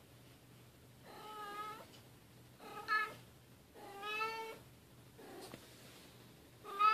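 Bengal cat meowing, four short meows about a second apart, the last and loudest one near the end.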